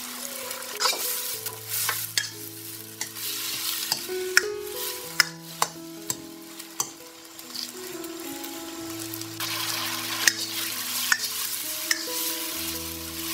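Food sizzling as it is stir-fried in a hot pan, with a spatula scraping and clicking against the pan many times at irregular moments.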